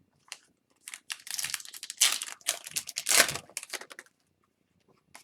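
Crinkling and rustling of plastic or foil trading-card packaging being handled, loudest for about three seconds in the middle, with a few short clicks around it.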